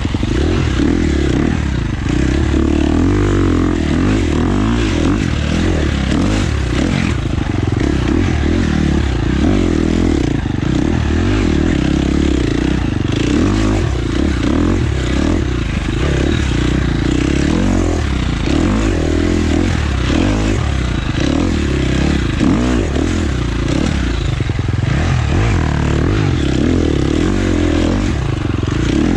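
Husqvarna FX 350 four-stroke single-cylinder dirt bike engine running hard, its revs rising and falling over and over as it is ridden through sand whoops.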